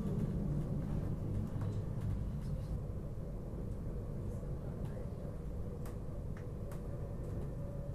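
Steady low rumble of a train running along the track, heard from inside the carriage, with a few faint clicks over the second half.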